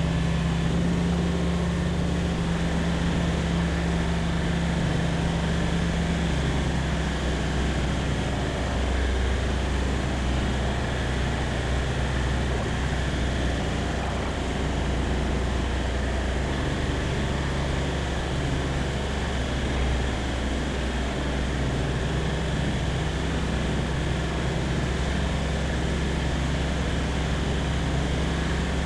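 Light aircraft's engine and propeller running steadily in flight: a constant drone with a deep low hum.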